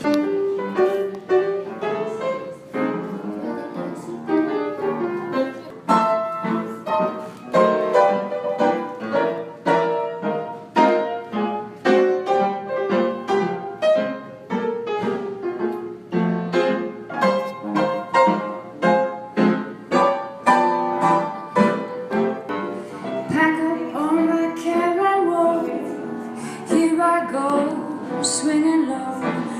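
Live jazz music led by piano, with a regular beat of struck chords.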